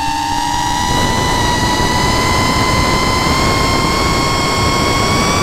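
DJI FPV drone's motors and propellers whining in flight, heard from a camera mounted on the drone: a steady high whine with many overtones that rises slowly in pitch, over a rushing noise.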